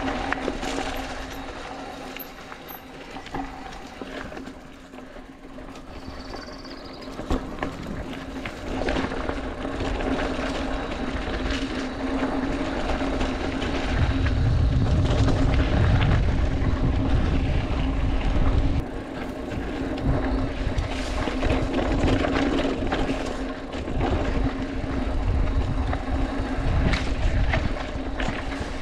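Scott Spark full-suspension mountain bike rolling down a dirt singletrack: tyres crunching on dirt, with the bike clattering and rattling over bumps. A steady low hum runs underneath, and wind buffets the helmet-camera microphone with a heavy rumble from about halfway on.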